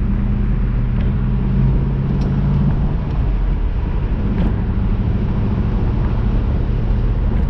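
2002 Pontiac Trans Am WS6's LS1 V8 running steadily while the car is driven, with road and wind noise; the engine note changes about three seconds in.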